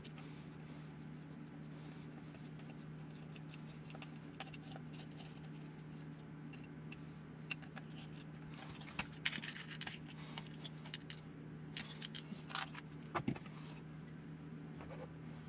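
Clicks, rattles and light knocks of a 1/10 electric RC buggy chassis being handled and turned over, bunched in the second half and loudest twice, over a steady low hum.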